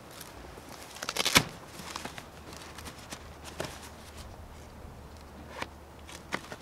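Footsteps on grass and hands handling tent fabric and fittings while a dome tent is pitched: a quick run of sharp clicks and rustles about a second in is the loudest part, followed by a few single sharp ticks.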